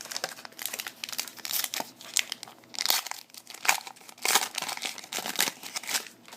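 Plastic wrapper of a 2011 Panini Prestige football card pack being crinkled and torn open by hand, an irregular run of crackles and rustles.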